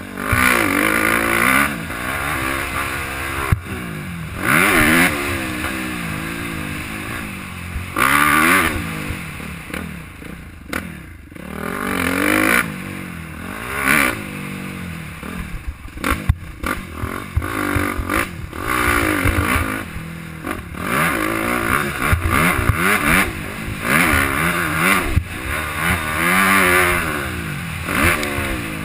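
Suzuki dirt bike engine revving up and dropping off again and again as the bike is ridden around a dirt track, with scattered sharp knocks and clatter from the bumps.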